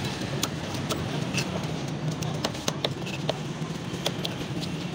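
Large knife chopping fish on a wooden chopping stump: irregular sharp knocks, about two a second, over steady street noise.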